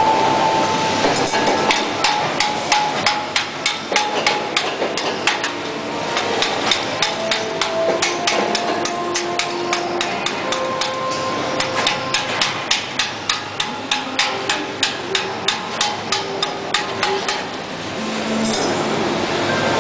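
Repeated hammering on metal at an industrial machine's belt pulley and shaft, about three sharp blows a second, stopping a couple of seconds before the end. A steady machinery noise runs underneath.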